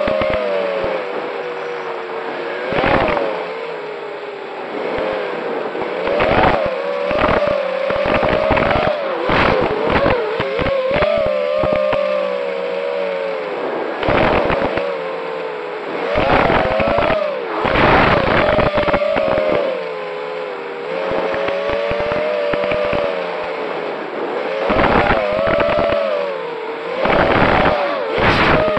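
Racing quadcopter drones buzzing, their motor pitch wavering up and down as they throttle, with many short, loud rushes of noise throughout.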